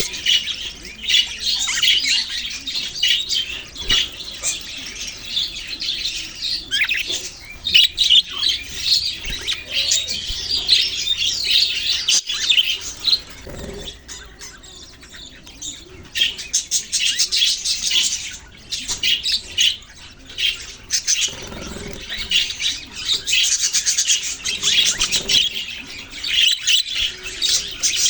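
A flock of budgerigars chirping and chattering, a dense, rapid high twittering that thins out for a couple of seconds about halfway through.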